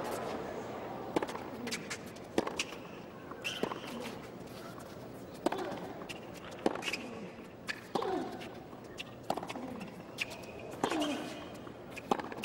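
A tennis baseline rally on a hard court: racket strikes on the ball about once a second, many with a short falling grunt from the hitter, over a low steady crowd hum.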